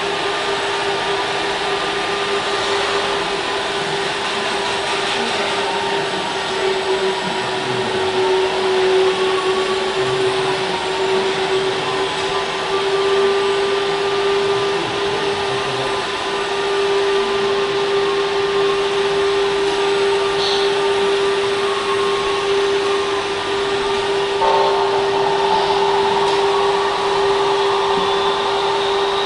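Electric hydraulic pump of a radio-controlled Liebherr 956 crawler excavator model whining steadily, with a fainter higher tone that wavers as the arm and slew are worked.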